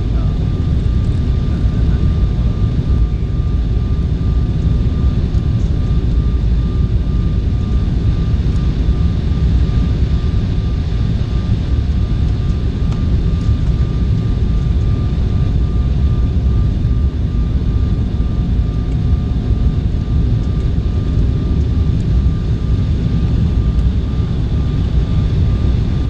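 Cabin noise inside an Embraer 190 airliner descending on approach: a steady low rumble of its twin turbofan engines and the airflow past the fuselage, with a faint steady whine over it. A second, lower whine stops a few seconds before the end.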